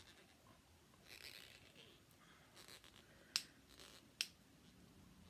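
Two sharp clicks a little under a second apart from a small cosmetic pot being handled, its lid clicking, with faint rustling before them.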